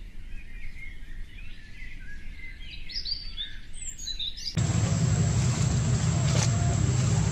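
Birds chirping and twittering in quick short calls. About four and a half seconds in, this gives way abruptly to louder, steady outdoor background noise with a low rumble and a thin, steady high-pitched tone.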